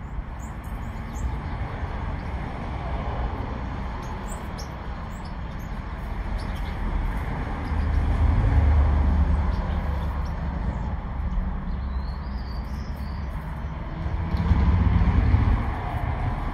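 Small birds giving short, faint, high chirps now and then over a steady low rumble. The rumble grows louder twice, around the middle and again near the end.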